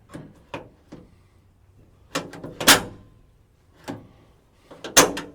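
1963 Chevrolet C10 pickup door latch and handle clicking and clunking as the door is worked, with two loud clunks about two and a half and five seconds in. The latch is a freshly fitted replacement that still needs adjusting.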